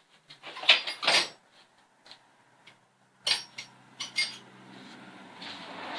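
Steel wrenches clanking and clinking together as tools are rummaged through, with a couple of loud sharp clanks about a second in and again past three seconds, then lighter clicks and a sliding, rustling noise.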